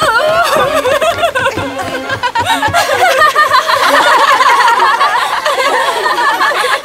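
Several young women's voices laughing together, overlapping, with music underneath.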